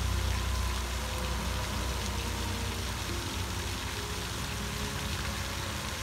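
Floating pond aerator fountain spraying, its falling water making a steady hiss, with a low rumble underneath that dies down about halfway through.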